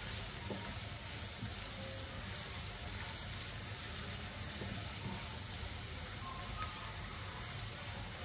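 Chopped onions sizzling steadily in hot oil in a kadhai as they are stirred with a silicone spatula, being sautéed until lightly browned.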